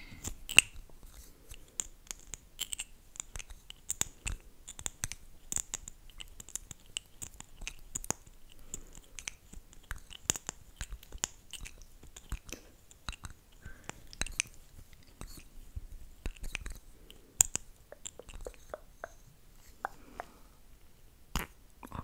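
Close-miked wet mouth sounds: glossed lips smacking and parting in a quick, irregular stream of small sticky clicks, with a few sharper, louder ones.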